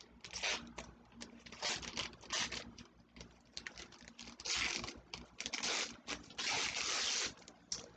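Sheets of hand-painted paper rustling and crinkling as they are handled and torn, in a run of short bursts with a few longer tearing sounds about halfway through.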